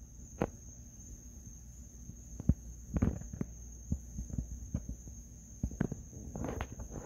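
Insects trilling steadily at a high pitch, with irregular knocks and thumps over it, the loudest about two and a half to three seconds in.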